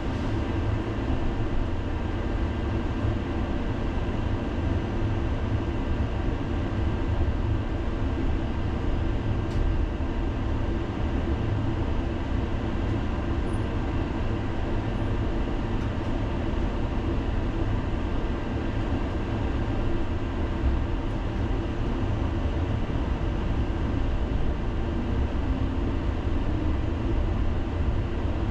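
Helsinki tram running along its rails, heard from inside the car: a steady low rumble with a few faint steady tones above it.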